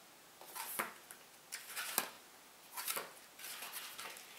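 Paper pages of a brochure being leafed through: several short rustles, with one crisp flick of a page about two seconds in.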